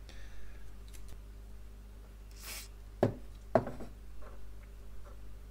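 Handling noises while a cotton swab scrubs a circuit board clean: a brief scrape, then two sharp knocks about half a second apart and a few faint taps, over a low steady electrical hum.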